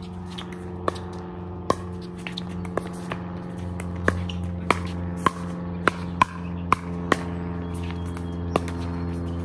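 Pickleball paddles hitting the hollow plastic ball in a rally: about ten sharp pocks, coming quickly about every half second through the middle as the players trade shots at the net. Under them runs a steady low machine hum.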